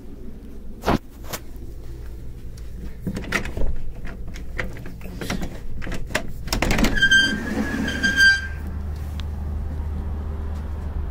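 Cruise-ship balcony sliding glass door being handled: a run of knocks and clacks, then two short high-pitched squeaks as it slides on its track. A steady low rumble follows.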